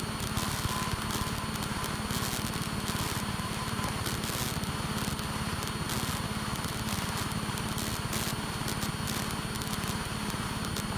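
Steady drone of a light single-engine propeller plane's piston engine heard inside the cockpit, with a fast low throb and an even hiss, and faint crackles over it.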